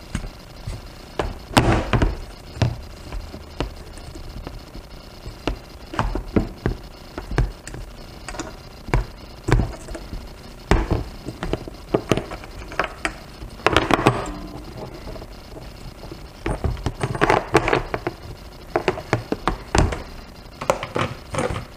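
Handling noise from a motorcycle throttle body assembly in a plastic tub as its vacuum hoses are pulled off: irregular taps, clicks and light knocks of metal parts against the plastic, busier in the middle and near the end.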